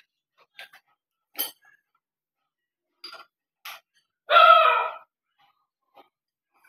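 Steel chains and a heavy steel forging clinking and knocking against the lathe chuck as the hanging workpiece is eased into place: a handful of short, separate clinks, and about four seconds in a louder pitched sound lasting under a second.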